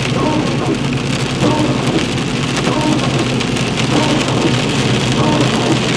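Rain falling on a vehicle as it drives, many small drop hits over a steady noise, with a steady low engine hum underneath.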